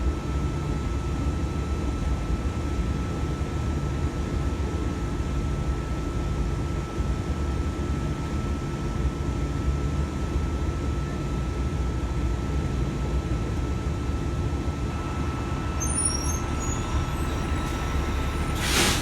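V-set double-deck electric train standing at the platform, humming steadily with a thin high whine over it. Near the end comes one short, loud hiss.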